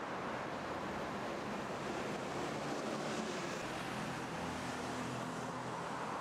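Steady city street traffic noise, with a low engine hum from a vehicle coming in about two and a half seconds in.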